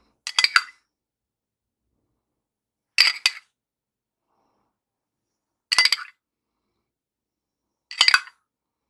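A spoon clinking against a small glass cup while melted butter is poured from it, in four short clusters of clinks a little under three seconds apart.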